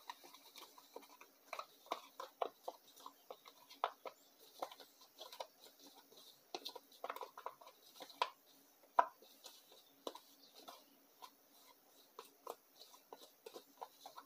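Metal fork scraping and tapping against the inside of a small plastic cup while stirring a thick paste of sawdust and wood glue: an irregular run of short clicks and scrapes, several a second, with one sharper knock about nine seconds in.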